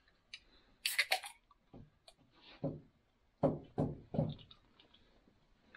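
Ring-pull drink cans cracked open with a sharp hiss about a second in, followed by several gulps as they are drunk from.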